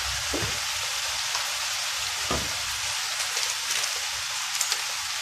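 Shrimp, onion and garlic frying in olive oil in a pan: a steady sizzling hiss.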